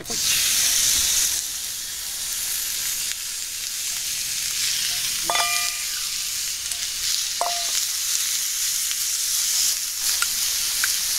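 Raw chicken pieces dropped into a hot pan over a wood fire, sizzling hard as they hit the oil, then settling into a steady frying sizzle as they are spread out with chopsticks.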